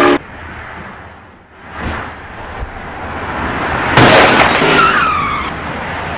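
Car collision at an intersection: a sudden loud crash about four seconds in, followed by a short falling screech of skidding tyres, over steady traffic noise.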